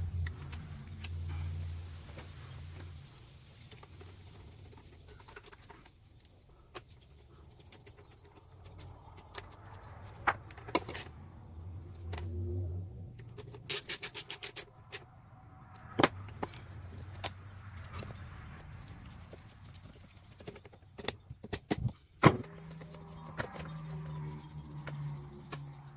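Hand reassembly of a Briggs & Stratton push-mower engine: scattered clicks and knocks of plastic and metal parts being fitted, with a quick run of clicks about fourteen seconds in and a few sharp knocks around twenty-two seconds, over a faint low hum. Near the end a screwdriver turns the screws that hold the engine cover.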